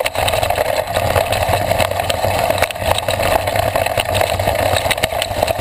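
Mountain bike ridden fast down a rough rocky dirt trail, heard through a handlebar-mounted camera: a steady rolling rumble with frequent knocks and rattles as the bike hits rocks and roots.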